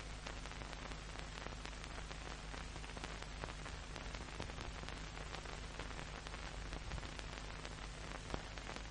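Soundtrack noise of an old film transfer: steady hiss with many fine scattered crackles over a low mains hum, no speech or music.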